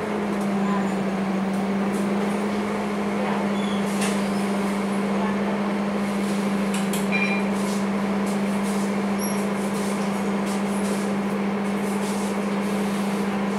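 Scania K230UB bus's five-cylinder diesel idling steadily while the bus stands still, a constant drone heard from inside the passenger cabin. Scattered light clicks and knocks from the cabin come over it.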